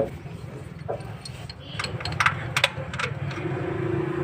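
Sharp metallic clicks and knocks of an oil filter wrench gripping and working at a stuck, dented car oil filter, the loudest two about two seconds in, over a steady low hum.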